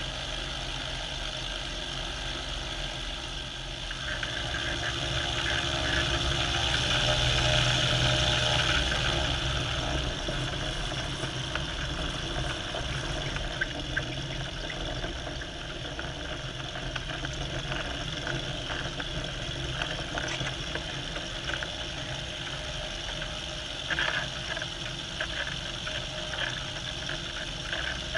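Aircraft engine running steadily. It swells louder for several seconds from about five seconds in, then settles back to an even drone.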